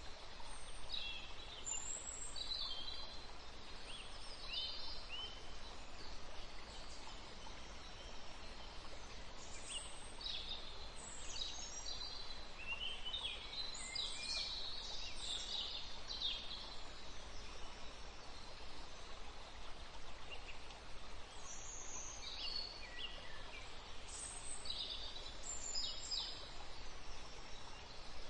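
Small birds chirping and singing in short, quick phrases over a steady background hiss, busiest in the middle and again near the end.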